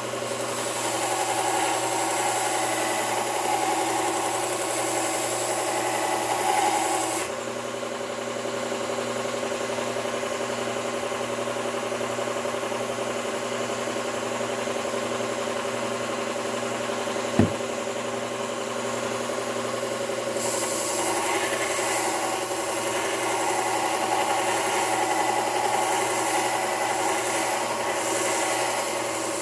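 Belt sharpener running while a steel chisel's bevel is ground on the abrasive belt, throwing sparks. The grinding hiss is strongest for the first several seconds and again for the last third, lighter in between, with a single sharp knock a little past halfway.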